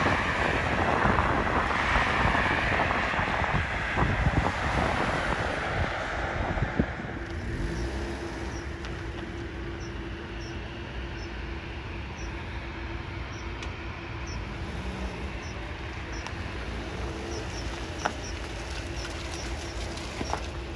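Jet engines of an easyJet Airbus A320-family airliner running loud in a steady rush, fading over the first several seconds. It then gives way to a quieter, steady engine hum with one low steady tone as the jet rolls slowly on the ground. Short high chirps repeat faintly in the background.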